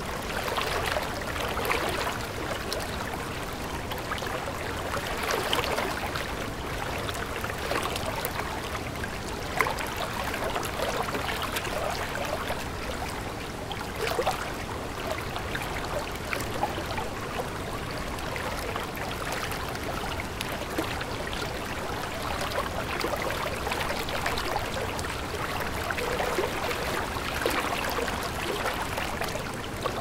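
A river flowing gently: a steady rush of water broken by many small splashes.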